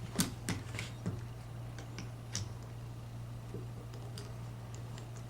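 A handful of sharp, light clicks in the first two and a half seconds, then only faint ticks, from a coax compression crimping tool and an F-connector being handled and set for crimping. A steady low hum sits underneath.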